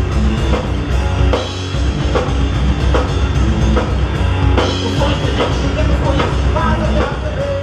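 Instrumental heavy metal: a full band with a driving drum kit and heavy bass drum, at a loud, steady level. A note is held near the end.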